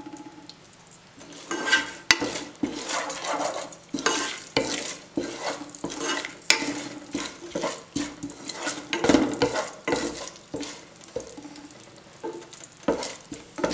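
A wooden spatula stirring and scraping in a non-stick saucepan while mustard seeds, urad dal and curry leaves sizzle in hot coconut oil. Irregular scrapes and a few sharp pops run through the frying hiss as the mustard seeds start to splutter.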